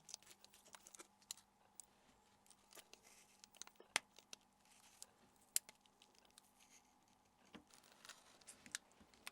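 Faint, scattered small clicks and light rustles from small plastic phone parts being handled and snapped together, with two sharper clicks about four and five and a half seconds in.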